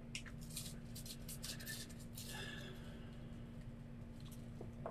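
Faint rustling and small clicks as gloved hands handle small plastic dropper bottles of colour, over a steady low hum.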